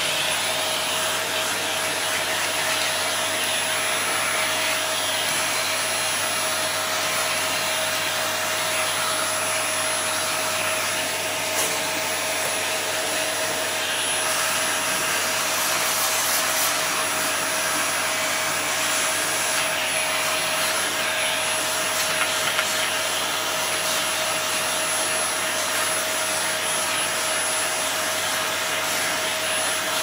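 Vax Air Steerable Max Pet upright vacuum running steadily through its hose, sucking dust off a stick vacuum's filter and shroud, with a steady whine over the rush of air. A few brief knocks come partway through.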